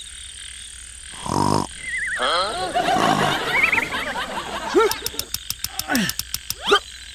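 Frogs croaking: a chorus of wobbly, warbling calls over a steady high tone, with a fast run of ticks and a few quick rising calls near the end.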